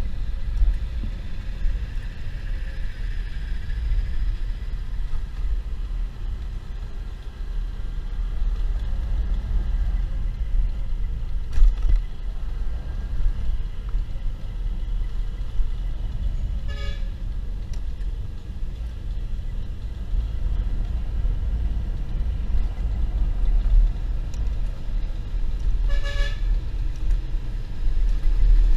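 Road and wind rumble from a moving motorcycle, mostly wind on the microphone. A vehicle horn gives two short toots, one about halfway through and one near the end.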